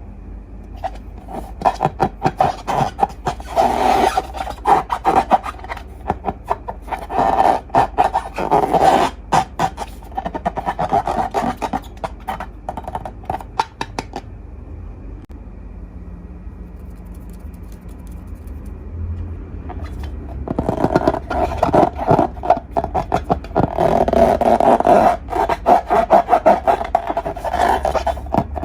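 Hands squeezing and working slime: rapid sticky crackling and clicking in two long stretches, with a quieter pause in the middle.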